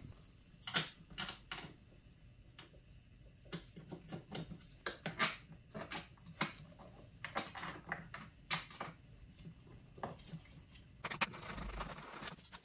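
Quiet, irregular clicks and taps of hard plastic and small metal parts being handled as a snowmobile's plastic airbox is seated and its small mounting bolts fitted, with a denser run of handling noise near the end.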